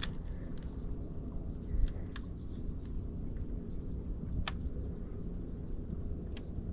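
Outdoor background noise: a low, steady rumble with a few faint, scattered sharp clicks.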